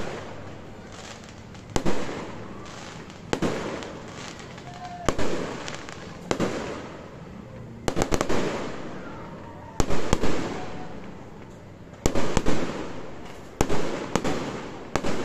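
Aerial fireworks bursting: a sharp bang every second or two, each fading away over about a second. The bangs come in quick pairs and clusters in the second half.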